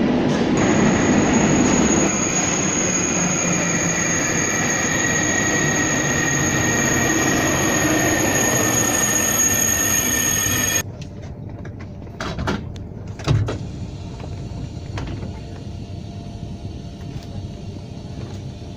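Wheels of a local electric passenger train squealing with a steady high whine over loud rolling noise as it moves along the platform. About eleven seconds in the sound cuts abruptly to a much quieter hum, with two brief knocks soon after.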